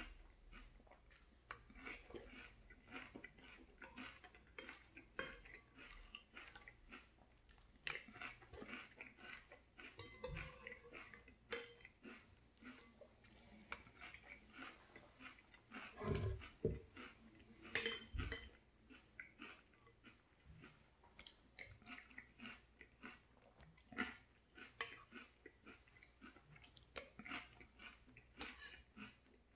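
Close-up chewing and crunching of frosted flakes in milk, with a metal spoon clinking and scraping in a ceramic bowl. Short crackles and clicks come all through, with a few louder dull knocks a little past the middle.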